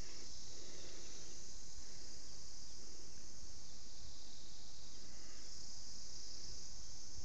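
Insect chorus, probably crickets, making a steady high-pitched drone that holds unchanged throughout.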